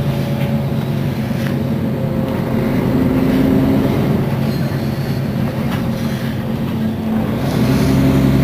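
Mercedes-Benz Citaro facelift city bus's rear-mounted engine idling steadily while the bus stands at the stop. The engine gets a little louder and deeper near the end.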